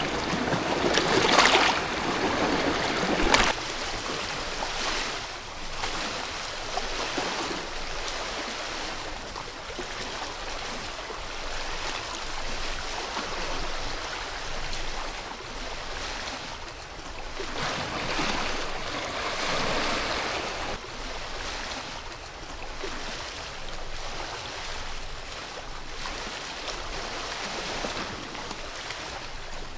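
Steady rushing water. A louder stretch at the start cuts off abruptly about three and a half seconds in, and the rush swells again for a few seconds past the middle.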